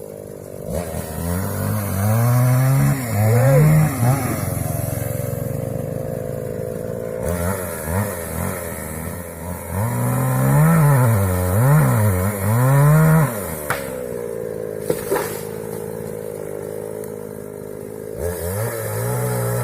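Two-stroke chainsaw felling a sengon tree, revving up and down in two bursts, about two seconds in and again about ten seconds in, and running at a steadier, lower speed between them and near the end.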